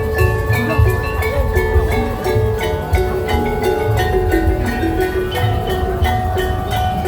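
Tongklek music: a bamboo percussion ensemble of slit drums and tuned bamboo playing a steady, fast rhythm. A melodic tuned-percussion line runs over a heavy low beat.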